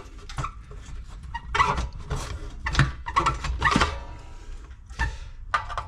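Pry bar levering the tight crankcase cover off a Briggs & Stratton 550EX engine, whose bent crankshaft is binding it: irregular metal scraping, knocks and short squeaks as the cover is worked loose.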